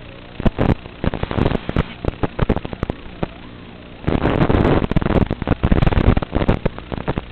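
Small FPV racing quadcopter's motors humming steadily, broken by rapid crackling and popping bursts that grow dense from about four seconds in.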